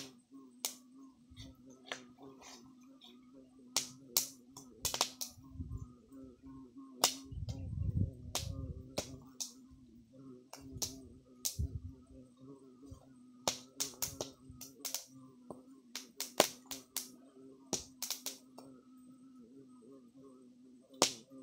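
Irregular sharp pops and cracks from an open wood fire with corn cobs roasting in the embers, over a steady low hum. A brief low rumble around eight seconds in.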